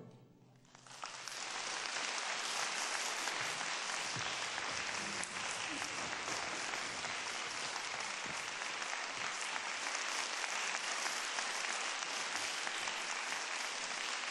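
The orchestra's final chord rings away in the hall. About a second in, audience applause breaks out and goes on steadily.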